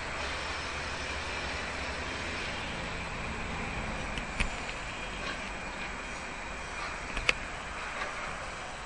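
Steady outdoor background noise, a low rumble under an even hiss, with two short sharp clicks about four and seven seconds in.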